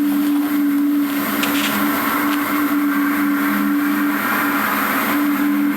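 A steady, low, droning hum of two held tones over a hiss of background noise: an amateur recording of the unexplained 'trumpets of the apocalypse' sound.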